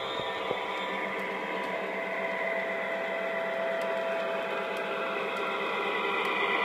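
Lionel Legacy L&N FA-1 model diesel locomotive running with its passenger train on O-gauge track: the onboard diesel-engine sound and the motors and wheels make a steady hum, with a few faint clicks, swelling slightly near the end.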